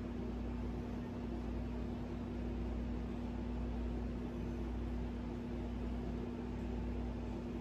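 Steady background hum with a constant low tone and a low rumble beneath it, unchanging throughout.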